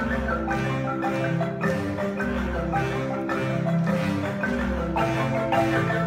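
Marimba ensemble playing: several wooden-keyed marimbas with tube resonators, high and bass together, struck in a steady interlocking rhythm over low bass notes.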